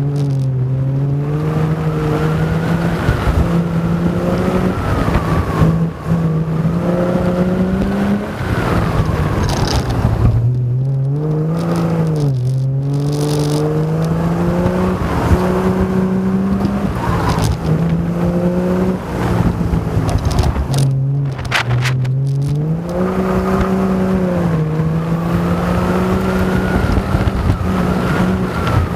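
Triumph GTR5 autocross car's engine, heard from on board. It revs hard, its pitch climbing and dropping again and again as the car accelerates and slows between turns.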